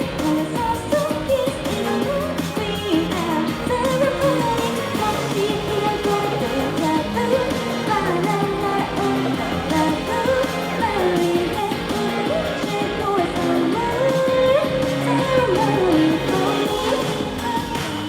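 Live pop-rock band playing, with guitars and drums under a female lead vocal singing the melody.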